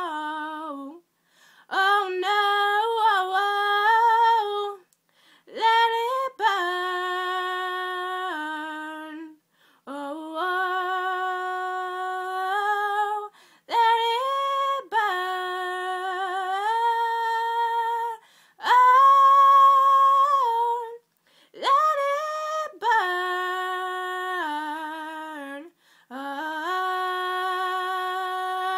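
A young girl singing unaccompanied. She holds long notes in phrases of a few seconds each, with short breaks for breath between them.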